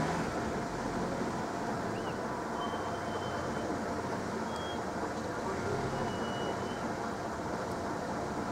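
Level crossing warning alarms sounding continuously while the barriers are down, at their loud day-mode volume.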